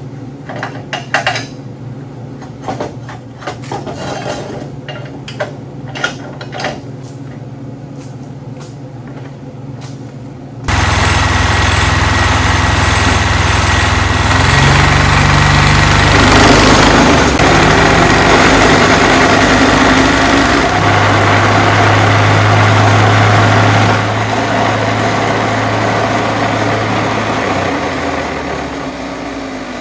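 MIG welding, heard as short crackling tack welds for the first third. Then a plate compactor's small engine runs loud and steady, vibrating the steel roller it is mounted on, and eases off a little about two-thirds of the way through.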